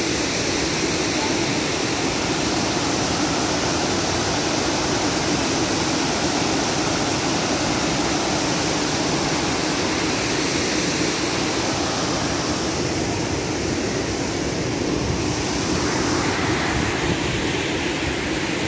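Waterfall's water rushing in a steady, even roar.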